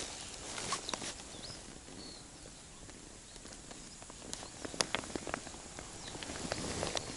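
Hooked roach splashing at the water's surface as it is played on a float rod, with small clicks of tackle handling; the splashing grows near the end as the fish is drawn in close.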